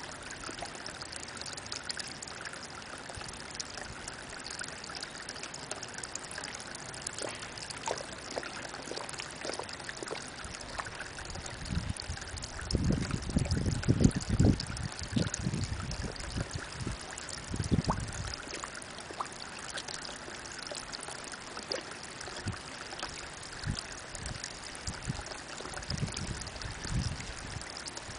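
Spring water trickling steadily from a rock ledge and splashing into a pond. A few low rumbles stand out about halfway through.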